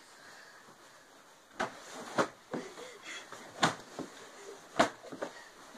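Two people wrestling on a bed: bedding rustling and bodies shifting, with about four sharp knocks close to the microphone after a quiet first second and a half, and short bits of breath and voice.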